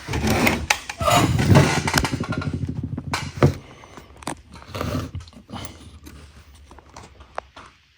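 Metal handling noises as a micrometer is set on a camshaft journal: scraping and a few sharp knocks, loudest in the first three and a half seconds, then fainter clicks.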